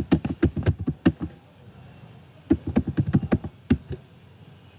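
Typing on a computer keyboard: a quick run of keystrokes, a pause of about a second, then a second run.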